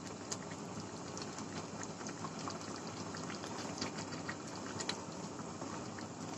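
Thick beef-trotter stew (nehari) simmering in a frying pan, a faint steady bubbling hiss with many small scattered pops and clicks as a spatula stirs through it.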